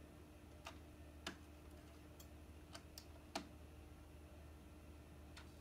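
Epson XP-8500 photo printer's mechanism giving several faint, irregularly spaced clicks and ticks while starting a print job, before it pulls in the sheet, over a low steady hum. The two loudest clicks come about a second and about three and a half seconds in.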